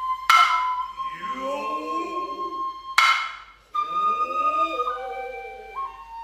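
Noh hayashi music: a nohkan bamboo flute holds high notes that step in pitch, and tsuzumi hand drums give two sharp strokes about three seconds apart, each followed by the drummers' long, gliding kakegoe calls.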